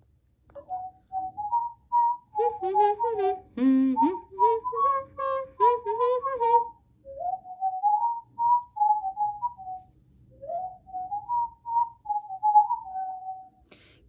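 Pets Alive Chirpy Birds plush toy playing one of its two built-in songs through its small speaker: a whistled melody of gliding notes. A lower second line joins from about two seconds in until about seven seconds.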